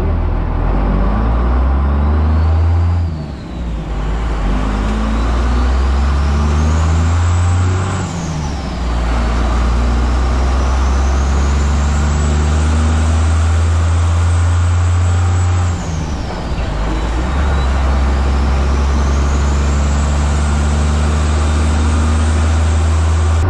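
A Grumman truck's engine accelerating hard and working up through the gears. The engine note and a high whistle climb together, then drop briefly at each of three shifts and start climbing again.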